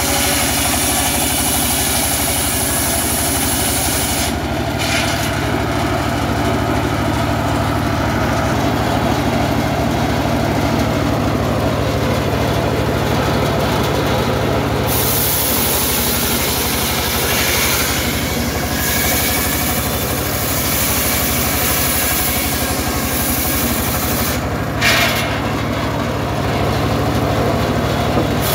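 Engine-driven circular sawmill running steadily with a constant low engine hum as its large blade rips a log lengthwise into boards. The cutting noise changes in pitch and strength as the wood goes through. Near the end there is one short, sharp knock.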